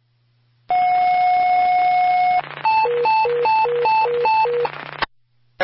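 Fire dispatch radio alert tones heard through a scanner: one steady tone for under two seconds, then a high-low tone alternating about five times a second for about two seconds. These are the tones that signal an emergency dispatch message to follow.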